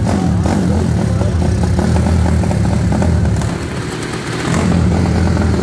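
Freshly built, tuned single-cylinder four-stroke motorcycle engine (a Honda CG/Titan-type with a 4 mm oversize cylinder kit) running through an aftermarket exhaust, held up on the throttle, easing off for about a second a little past halfway and then picking up again.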